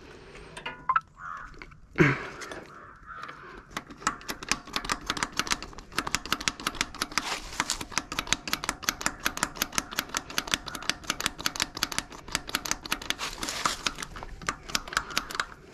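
Rapid, somewhat irregular metallic clicking, about five or six clicks a second, from hand tools at work on a diesel tractor's engine, with a single sharper knock about two seconds in.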